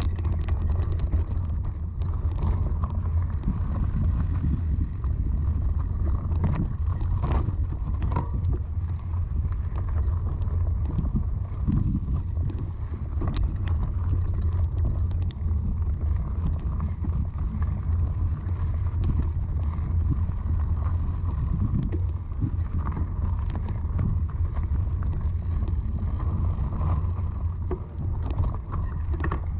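Mountain bike rolling over a rocky dirt trail: a steady low rumble of tyre and wind noise, with frequent short clicks and rattles from gravel and the bike's parts.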